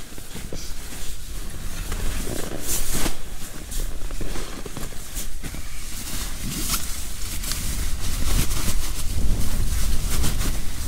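Strong wind buffeting a four-season mountain tent, heard from inside as a steady low rumble that grows stronger near the end, with rustling and crinkling of a nylon sleeping bag and stuff sack being handled close by.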